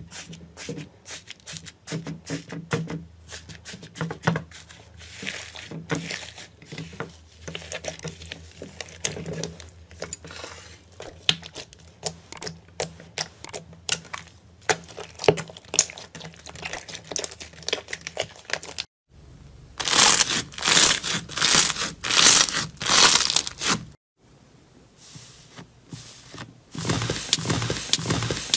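Hands pressing, poking and squeezing slime, giving dense crackling, clicking and popping sounds as the slime is worked. About two-thirds through the crackling turns louder and denser for a few seconds, stops sharply, then picks up again near the end.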